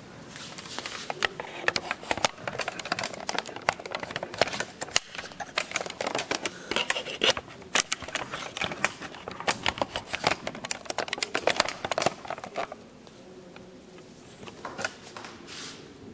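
Rapid, irregular clicking and clatter of small hard parts being handled. It stops fairly abruptly about three-quarters of the way through, leaving a quieter stretch.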